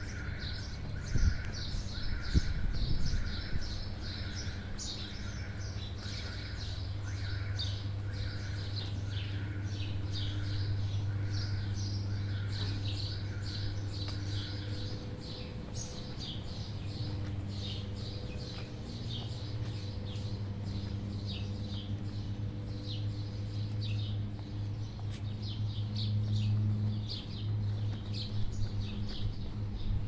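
Many small birds chirping busily. For the first half, a regular repeated call comes about once a second. A steady low hum runs underneath.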